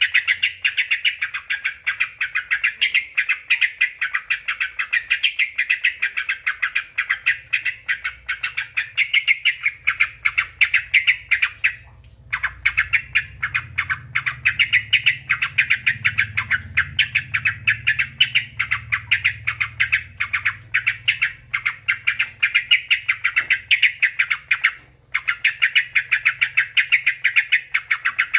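Yellow-vented bulbul (trucuk) song used as a lure call: a dense, rapid run of repeated chirps, broken by two short pauses.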